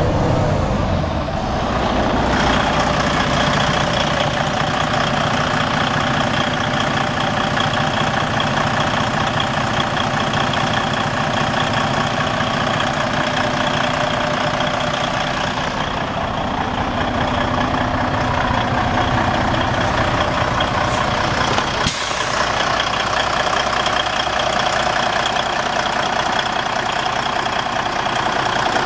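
Freightliner Cascadia's Detroit diesel engine running steadily, heard up close with the hood open. A brief sharp noise comes about 22 seconds in.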